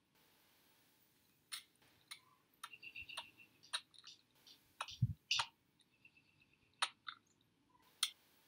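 Sparse, irregular sharp clicks and ticks, with a few short faint high chirps and one dull thump about five seconds in.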